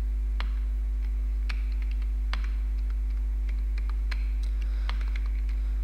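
Computer keyboard keys typed in a few scattered clicks, over a steady low hum that is the loudest sound.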